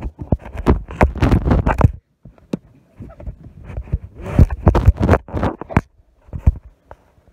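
Phone handling noise: loud, irregular rustling, scraping and knocking against the phone's covered microphone, in clumps with short gaps.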